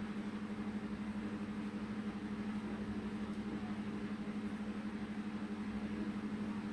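A steady low hum at one constant pitch, under a faint even hiss.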